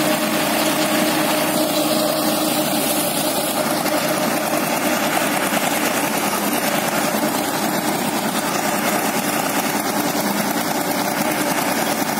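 Tractor-driven paddy multicrop thresher running under load as paddy is fed in. The tractor's engine and the thresher's drum and blower make one loud, steady mechanical drone with a constant hum.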